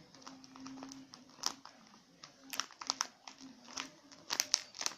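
Plastic squishy-toy packaging crinkling as it is handled and turned over, in irregular crackles that bunch up near the end.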